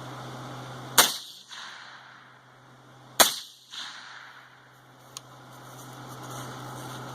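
Two suppressed rifle shots from a 20-inch DPMS AR-15 in 6.8 SPC II fitted with a home-built Form 1 suppressor, about two seconds apart. Each sharp report is followed about half a second later by a fainter second sound.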